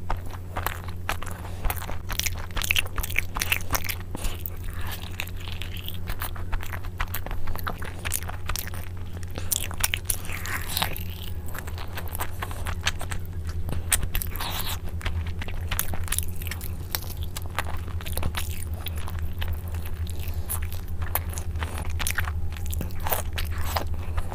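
Close-miked eating: a person biting and chewing pieces of curried fried chicken leg, with many quick, irregular mouth clicks and wet chewing noises over a steady low hum.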